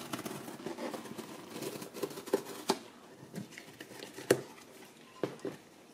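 A cardboard box being cut open: a small hand tool scraping and slitting the packing tape along the flap, with rustling of paper and cardboard and scattered sharp taps and knocks, the loudest a little past the middle.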